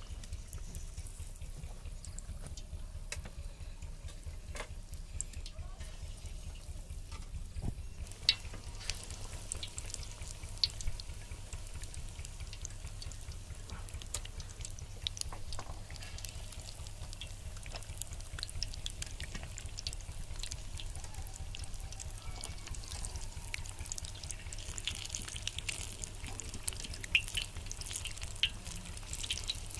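Battered egg pakoras sizzling and crackling in hot oil in an iron kadhai, the crackle growing thicker about a third of the way in and again near the end as more pieces go into the oil, with a few sharp pops. A steady low hum runs underneath.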